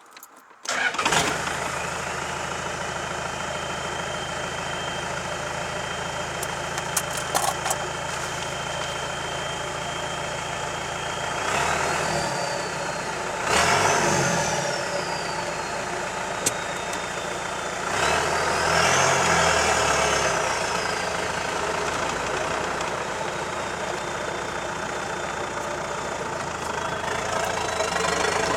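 Isuzu 4BD1T four-cylinder turbo-diesel in a Land Rover 110, run on a short header exhaust, starting about a second in and idling with a steady high turbo whistle. It is then revved three times, the whistle rising in pitch as the turbo spools and falling away as the revs drop, with a rush of air from the factory dump valve blowing off after the second rev.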